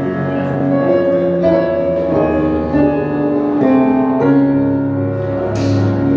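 Background music: slow, held keyboard chords that change about once a second, with a short hiss about five and a half seconds in.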